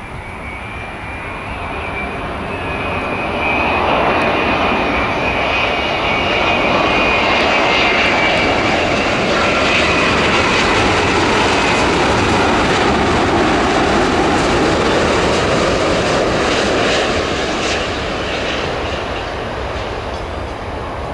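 Jet airliner's engines passing the runway: a loud rushing roar that builds over about four seconds, holds, then fades near the end, with a high whine that drops slightly in pitch as it goes by.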